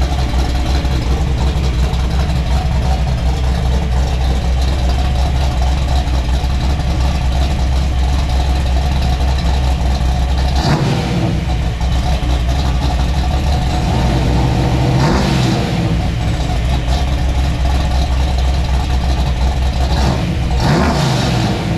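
Car engine running through a custom dual exhaust with a steady deep drone, rising in pitch under throttle three times.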